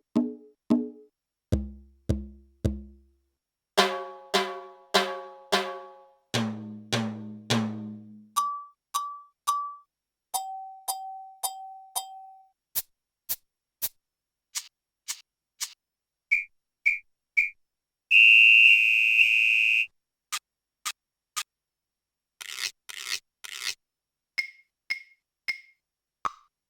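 Electronic drum module's stock percussion voices sounding one hit at a time at a steady pace of about two a second, the voice changing every few hits: low drum tones, pitched blips and beeps, a held tone, and about two seconds of loud buzzing noise some two-thirds of the way through.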